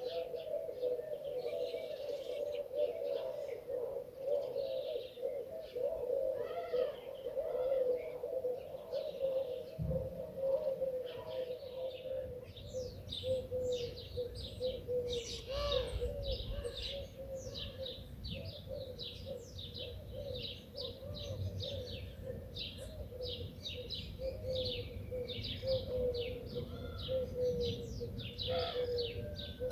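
Garden birdsong: doves cooing steadily in a low wavering drone, with small birds chirping high and quick, the chirping getting much busier partway through. A low rumble comes in about ten seconds in.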